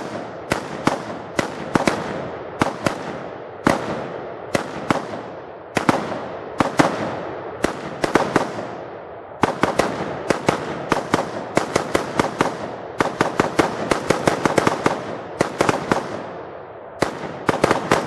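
Two semi-automatic rifles, an AR-15 in 5.56 and a Romanian WASR-10/63 AK in 7.62x39, fired rapidly together in a long irregular volley of dozens of shots, each with an echoing tail. In places shots from both rifles fall close together and run like fully automatic fire.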